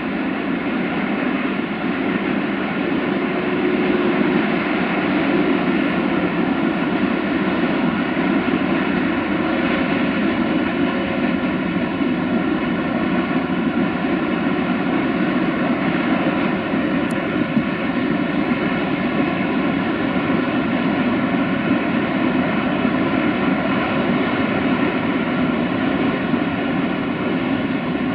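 Freight train of tank wagons hauled by an LE 5100 kW (060-EA) electric locomotive running by: a steady, even rumble with several constant humming tones in it.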